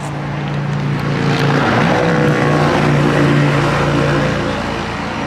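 A motor vehicle engine running with a steady low hum over traffic noise. It grows louder about a second in and fades near the end, like a vehicle passing close by.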